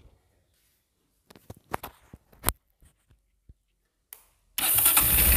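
A few short sharp clicks and knocks, then near the end a Bajaj Pulsar motorcycle engine starts up suddenly and runs loudly. It is being run with its balancer pinion removed, as a test of whether the abnormal engine noise is still there.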